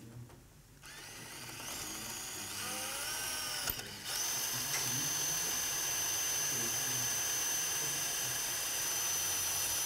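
Surgical power drill running steadily as it bores a screw hole in pelvic bone. It starts about a second in, and about four seconds in a high steady whine sets in and holds.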